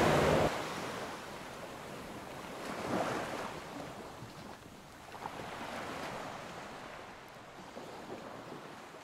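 Sea waves washing in a steady hiss that swells twice, about three and six seconds in, with some wind. Music cuts off within the first half second.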